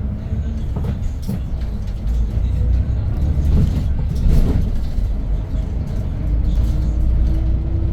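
Hyundai New Super Aerocity city bus running with its C6AF CNG engine, heard from inside the cabin. A heavy low rumble of engine and road swells as the bus speeds up, with light rattles throughout. Near the end the engine note rises slowly in pitch as it pulls in gear.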